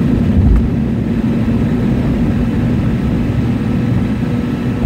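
Airliner cabin noise during climb-out after takeoff: the jet engines' steady rumble and rushing air, with a constant low hum throughout.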